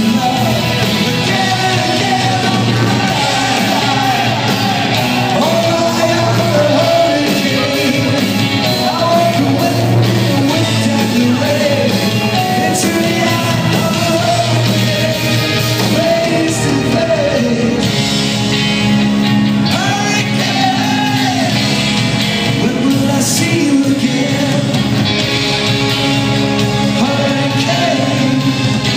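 Live rock band playing, with singing over the band throughout.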